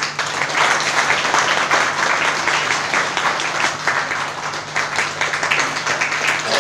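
Crowd of people applauding steadily, many hands clapping at once.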